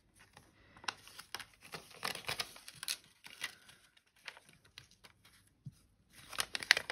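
A tacky masking sheet being peeled off stamped cardstock: scattered crackles and paper rustling, with a denser run of crackles near the end.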